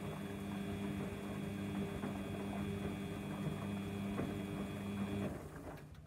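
Samsung washing machine running on a heavy wash cycle: a steady motor hum with a high whine over it, which stops about five seconds in.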